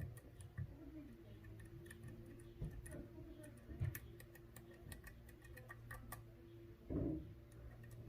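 Faint, irregular small clicks and ticks of a lock pick working the pins inside a Medeco D11 six-pin biaxial cylinder held under tension, over a steady low hum. A single louder muffled bump comes about seven seconds in.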